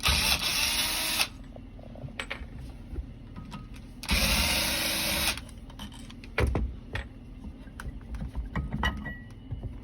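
Cordless screwdriver running twice, about a second each time, at the start and about four seconds in, backing out the screws that hold the pump's flange. Light clicks and knocks of screws and parts being handled follow.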